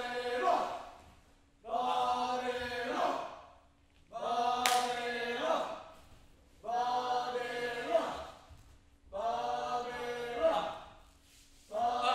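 Group of voices chanting a short sustained phrase in chord, repeated about every two and a half seconds with brief pauses between.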